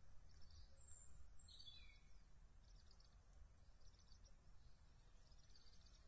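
Faint birdsong: short high trills from small birds, repeating every one to two seconds, and a brief descending call about one and a half seconds in, over a low steady rumble.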